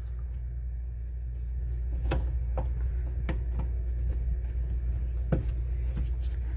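Scattered plastic clicks and knocks as the slip nuts on a flexible PVC sink drain trap are tightened by hand, over a steady low hum.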